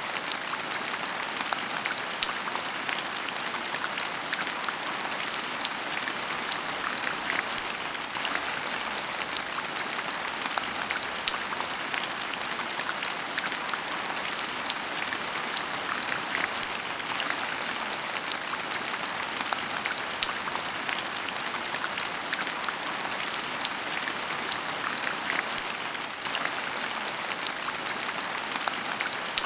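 Heavy rain falling steadily: a dense, even hiss of drops with many small sharp drop impacts scattered through it.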